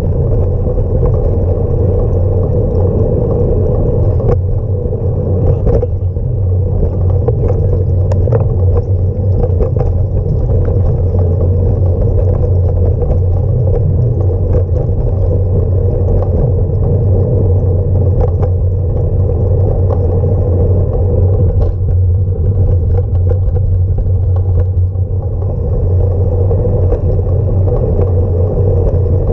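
Rolling noise of a bicycle ridden over paving stones, picked up by a handlebar-mounted camera: a steady low rumble with scattered small clicks and rattles from the bike.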